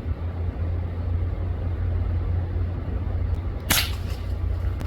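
A single sharp crack of a .22 Brocock Atomic XR PCP air rifle firing, about three and a half seconds in, over the steady low rumble of an idling vehicle.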